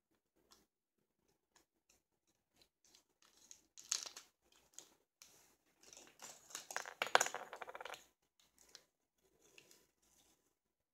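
Crinkling and clicking of plastic packaging and small containers being handled, busiest about four seconds in and again between six and eight seconds.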